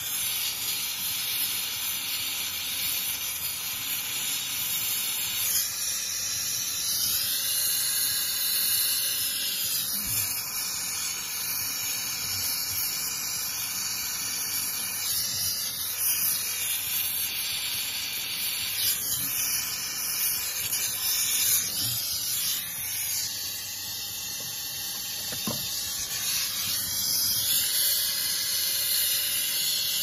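Small oxy-gas jeweler's torch with a number 7 tip, its flame hissing steadily as it heats a sterling silver buckle for silver soldering. The hiss shifts a little in tone now and then.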